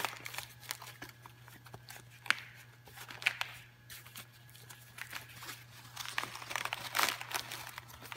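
Rustling and crinkling of a large wired fabric bow as its loops are pulled out and shaped by hand, in short irregular bursts, loudest about seven seconds in.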